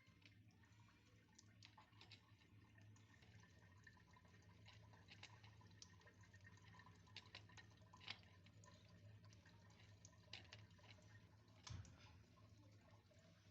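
Near silence: faint, irregular small clicks and ticks over a low steady hum.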